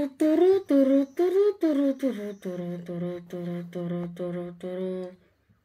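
A young voice humming a wordless tune in short separate notes, about three a second: the first few higher and sliding up, then a run of repeated notes on one lower pitch, stopping about five seconds in.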